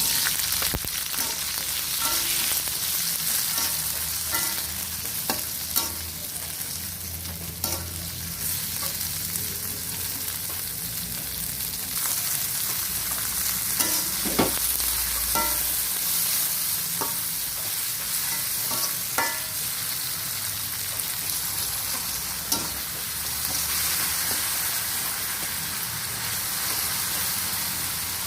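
Food sizzling in hot oil in a pan, starting abruptly and running steadily, with occasional sharp knocks and scrapes of a spatula against the pan as it is stirred.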